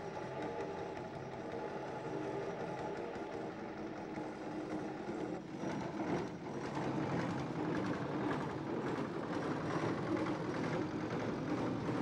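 Boat engine running steadily, growing louder and rougher about halfway through.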